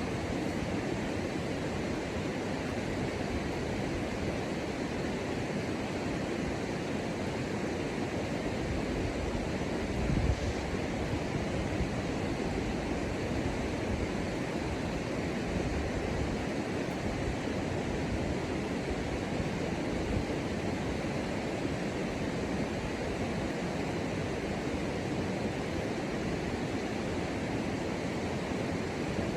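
Steady, even rushing noise of outdoor ambience with no distinct events, and one brief low thump about ten seconds in.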